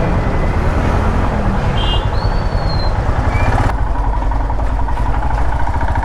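Motorcycle engine running at low speed in town traffic, with street noise around it. A brief high beep about two seconds in, and the background changes abruptly a little past halfway.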